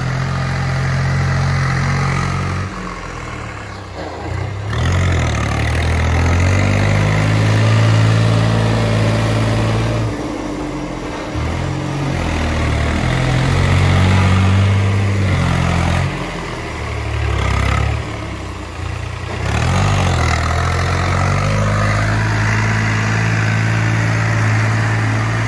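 New Holland tractor's diesel engine working hard as the tractor ploughs through deep water, its engine speed rising and falling several times, with the tyres and towed cultivator churning and splashing the water.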